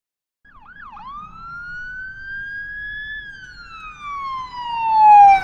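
A siren-like sliding tone with overtones. About half a second in it starts with two quick dips, then rises slowly and slides down over about two seconds, growing louder, and swoops back up just at the end.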